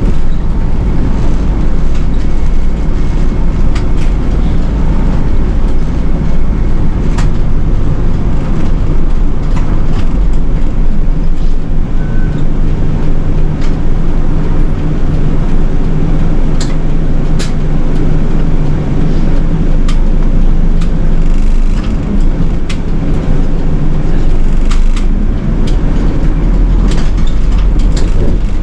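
Nishitetsu city bus under way, heard from inside the cabin: a steady engine and road rumble whose pitch shifts a little, with scattered rattles and clicks.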